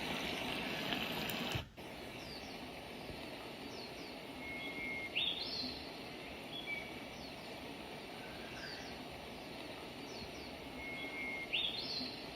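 Zealot Z6 white noise machine's speaker playing its rain sound, which cuts off suddenly under two seconds in as it switches to a birdsong track: bird chirps and rising calls over a steady background hiss, the same phrase of calls coming round again about six seconds later.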